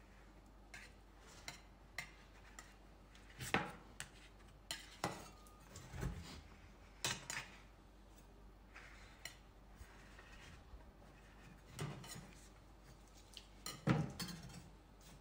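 Metal spatulas scraping and tapping on a frozen steel ice-cream cold plate as a thin sheet of ice cream is pushed up and rolled into rolls. Irregular scrapes and clicks, with louder strokes every second or two.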